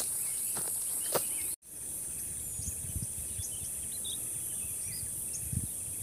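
A steady, high-pitched insect chorus with faint bird chirps over it and a few soft footfalls. The sound cuts out for an instant about a second and a half in.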